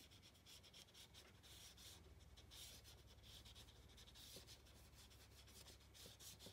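Faint scratchy rubbing of a water brush's bristles stroked back and forth across watercolour paper, the hiss rising and falling with each stroke as the pigment is worked in.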